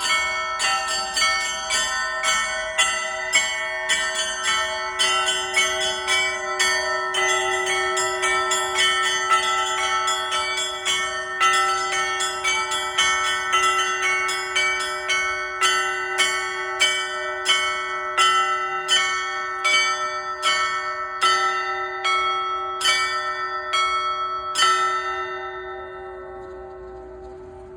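Orthodox church bells ringing: the smaller bells are struck rapidly, about two strikes a second, over the steady hum of the larger bells. The strikes stop about 25 seconds in, and the bells ring on and fade away.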